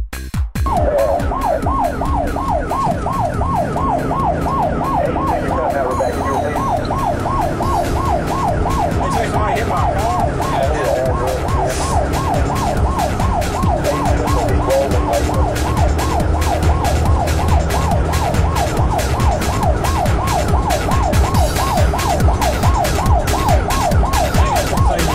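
Emergency-vehicle siren in rapid yelp mode, its pitch sweeping up and down about three times a second, heard from inside the responding fire chief's vehicle over engine and road rumble. It starts about half a second in.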